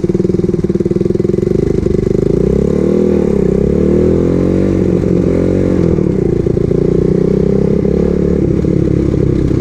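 A 110cc four-stroke pocket bike engine running under way, freshly rebuilt and still being broken in. Its revs rise and fall a couple of times in the middle, then hold steady.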